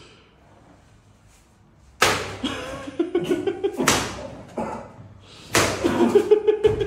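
Three sharp smacks, the first about two seconds in, each followed by a drawn-out cry.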